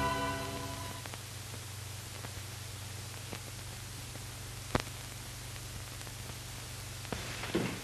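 Hiss and steady low hum of an old optical film soundtrack, with a sharp click and faint crackles. A held music chord fades out in the first second, and a few soft knocks come in near the end.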